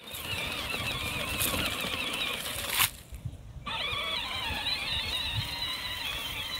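Electric motor and gearbox of a Peg Perego John Deere battery ride-on tractor whining while driving, the high whine wavering in pitch, over low rumbling and knocks from the plastic wheels. The sound breaks off for about half a second near the middle, then resumes.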